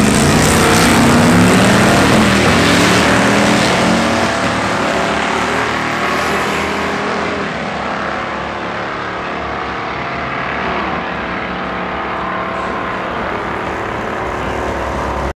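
Mazda RX2's swapped Gen V L83 5.3-litre V8 launching hard off the drag-strip start line, the engine note rising in pitch through the first few seconds, then fading steadily as the car runs away down the quarter mile.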